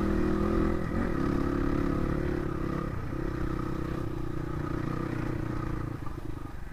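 Crossfire RM250 dirt bike's single-cylinder engine running under steady throttle while riding a rough dirt track, with brief dips in the note about one and three seconds in.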